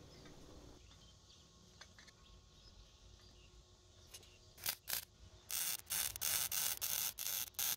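Wire-feed welder arc crackling in a string of short welds on square steel tubing, about three a second, starting about two-thirds of the way in after a couple of brief blips; before that only faint rustling.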